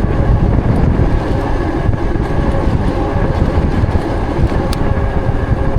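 Wind buffeting the microphone of a moving e-bike, a loud rumbling rush, with a faint steady whine running through it.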